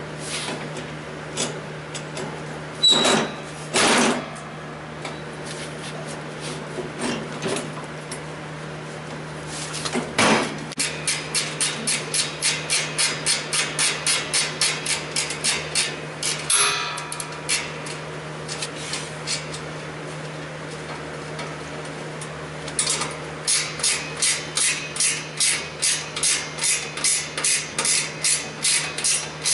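Hammering: a few separate blows, then two long runs of steady, evenly spaced hammer strikes at about three a second, with a short pause between the runs.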